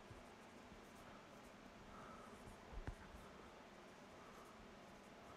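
Faint squeaks of a dry-erase marker writing on a whiteboard, with a soft knock about three seconds in.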